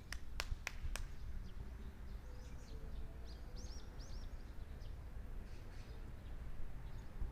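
Steady low outdoor rumble with four sharp clicks in quick succession in the first second, then small birds chirping a few seconds in.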